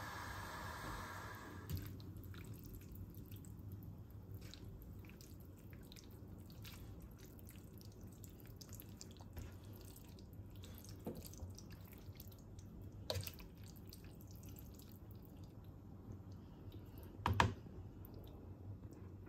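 Pot of water heating on the stove for pasta, with faint scattered ticks and small pops of bubbles as it comes toward the boil. A steady hiss stops about two seconds in, and two sharper knocks come later, the louder one near the end.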